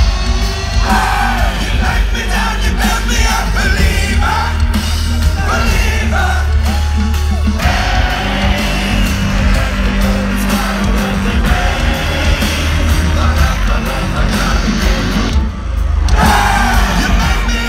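Live concert music: amplified singing over heavy bass and drums, with the crowd yelling and singing along, heard through a phone's microphone from within the audience. The music briefly drops out near the end before coming back in.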